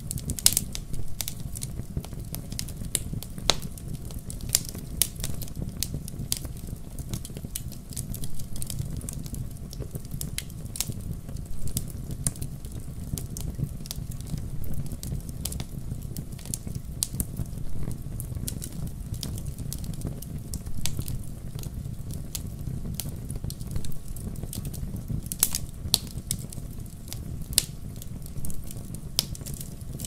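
Wood fire of split logs burning in a fireplace: a steady low rumble of flames with irregular sharp crackles and pops throughout.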